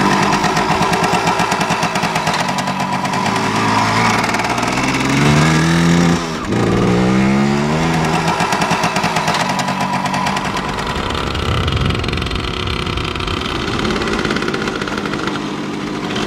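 Vintage Kawasaki two-stroke single-cylinder trail bike engine being revved hard. Its pitch climbs twice in quick succession about a third of the way in, with a brief drop between.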